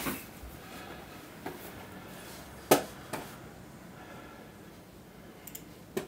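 A single sharp knock about three seconds in, with a few fainter clicks and taps before and after it, against quiet room tone.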